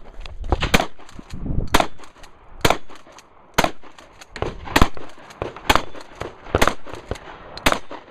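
Close gunfire from a firearm being shot rapidly: eight loud shots about a second apart, with fainter cracks in between.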